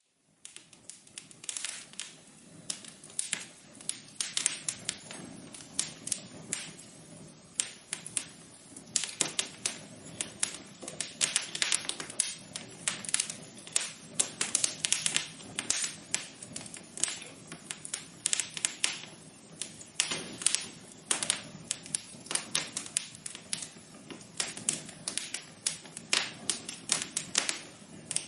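Wood fire crackling in a fireplace: many irregular pops and snaps over a soft hiss, starting up at the outset and getting busier from about eight seconds in.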